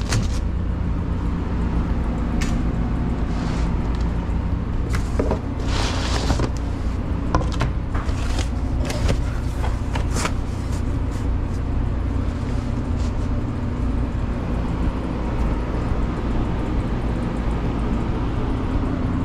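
Steady low hum of pizza-shop kitchen machinery, with scattered knocks, scrapes and clicks as a pizza is cut with a long knife and cardboard pizza boxes are handled and closed.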